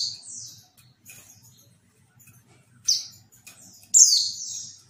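Female white-eye (pleci) giving short, high calls that slur downward. There is a faint one early on, a loud one about three seconds in, and a longer loud one near the end. It is the kind of female call played to provoke male white-eyes into answering and singing.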